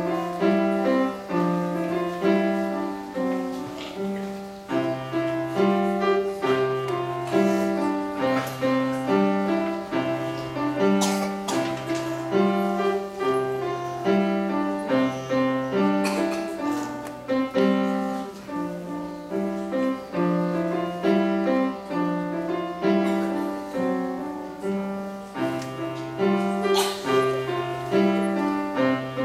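Solo upright piano playing a simple melody over a steady left-hand bass that alternates between two low notes about once a second.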